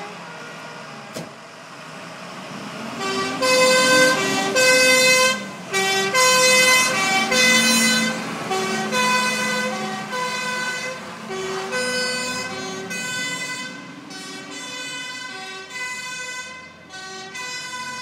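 Two-tone hi-lo sirens of departing fire-rescue vehicles, switching between two pitches about every half second over diesel truck engine noise. They grow loud about three seconds in, then slowly fade as the vehicles drive away.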